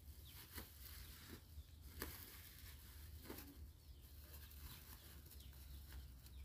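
Near silence, with faint scattered clicks and rustles from a large plastic sack being gripped and tied shut.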